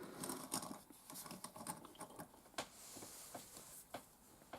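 Faint, irregular small clicks and taps of plastic Lego minifigure parts being handled.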